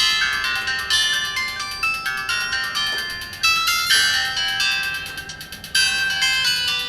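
A Samsung SGH-T509 mobile phone playing a ringtone: a quick melody of short bell-like notes with chords, dipping briefly about five seconds in before the next phrase starts.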